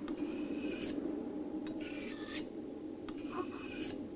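A kitchen knife being sharpened on a whetstone: three long scraping strokes about a second and a half apart, over a low steady hum.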